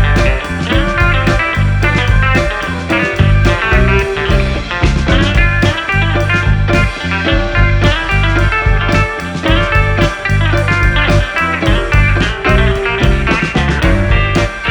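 Background music: guitar-led blues rock with a steady beat.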